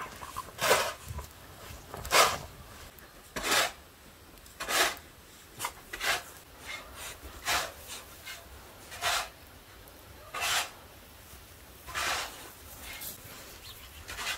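Snow shovel scraping and scooping snow in a steady rhythm, one short rasping stroke about every one and a half seconds.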